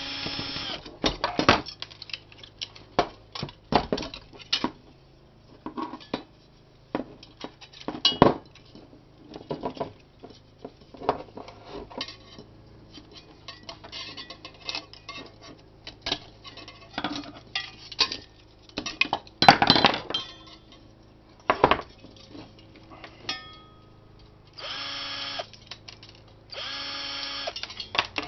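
Metal clinks and clatter as the parts and circuit boards of a computer power supply are handled and pulled apart, with short whirring runs of a cordless drill driving out screws at the start and twice near the end.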